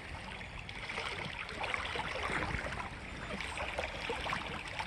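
A creek with a strong current, its water running steadily.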